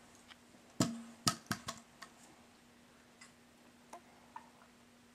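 A plastic water bottle being handled: four sharp clicks and knocks in quick succession about a second in, then a few fainter ticks. A faint steady hum runs underneath.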